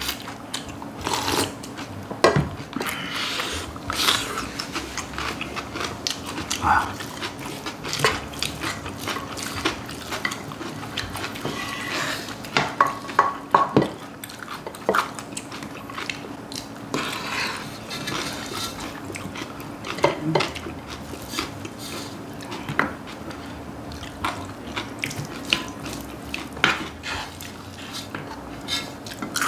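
Spoons and chopsticks clinking and scraping against a pan and bowls as bibimbap is scooped and eaten, with sips of cold soup. A steady low hum runs underneath.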